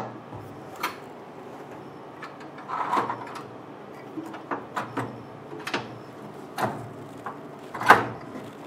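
Scattered metal clicks and knocks as a rotary mug-printing jig is set onto its mounting rods inside a UV flatbed printer and fastened, with the loudest clack near the end.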